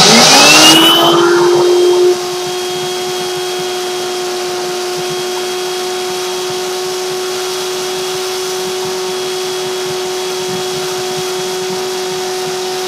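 Vacuum cleaner switched on, its motor whine rising to a steady pitch within about a second, then running steadily as it sucks leftover toner out of an opened laser-printer toner cartridge. It is very loud for the first two seconds, then drops suddenly to a steady, quieter level.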